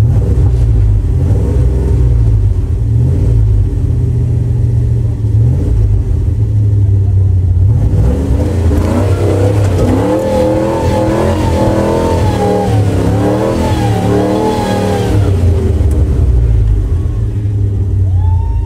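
Truck engine rumbling, heard from inside the cab, revving up and down repeatedly from about eight to fifteen seconds in while the vehicles work through the mud.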